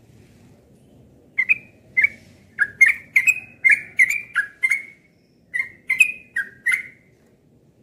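Yellow-vented bulbul (trucukan) singing a quick run of about a dozen short, clear notes, each with a sharp start. The song pauses briefly around five seconds in, then picks up again for a few more notes.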